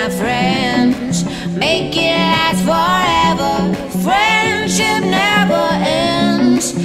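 Background music: a pop song with a voice singing over a repeating plucked accompaniment.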